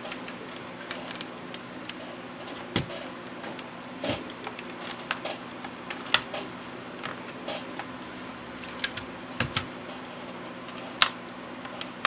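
Plastic snap clips of a power window and lock switch housing being pried loose with a small tool: scattered, irregular sharp clicks and light scraping, the loudest about six seconds in and again near the end, over a steady low hum.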